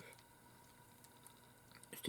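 Near silence: room tone with a faint steady hum and a few tiny clicks near the end.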